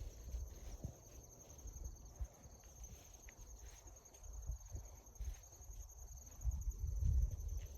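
Steady, finely pulsing high chirring of insects in the field, with an uneven low rumble underneath that is loudest near the end.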